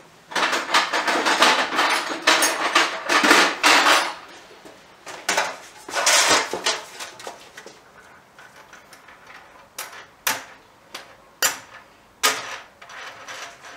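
Someone rummaging through hard objects and tools, with clattering and scraping for the first several seconds, then several sharp knocks near the end.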